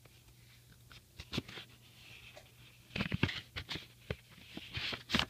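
Packaging being pulled and torn open by hand: a lone click about a second in, then a run of sharp crackles and rustles from about three seconds, and a snap near the end.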